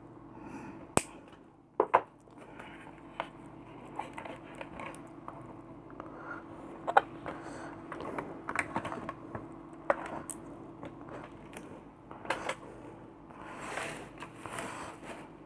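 Scattered small clicks, taps and handling noises of hand work on the nebulizer's new power cable, over a faint steady hum.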